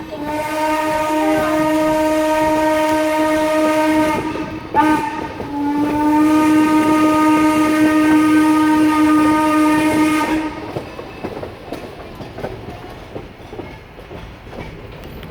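Steam locomotive N&W 475's whistle blowing a long blast, a brief toot about four and a half seconds in, then another long blast. After the whistle stops, only the quieter running noise of the train on the rails is left.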